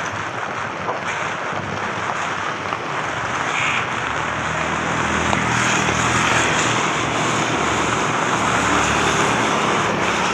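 Heavy rain falling, a steady hiss, with a motor vehicle's engine rumbling past from about four seconds in until near the end.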